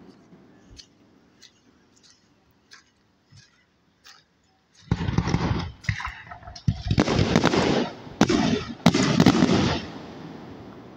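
Fireworks going off: scattered faint pops at first, then from about halfway a run of loud bangs and crackling bursts for about five seconds before it fades.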